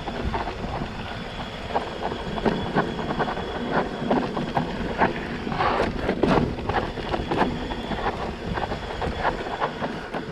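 Electric mountain bike clattering over a rough, rocky trail descent: irregular knocks and rattles of tyres, frame and parts striking rocks, busiest about six seconds in, over a steady rush of noise.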